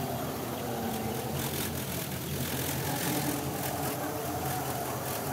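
Pontiac Trans Am's V8 idling steadily.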